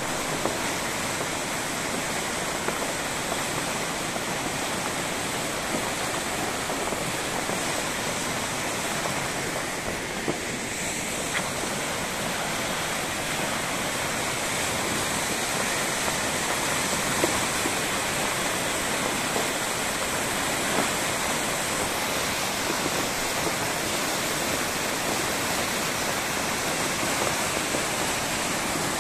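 A flood-swollen, muddy stream rushing and churning through its channel in a steady, loud rush of turbulent water.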